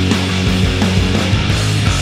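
Loud rock music with sustained heavy chords and an even level throughout.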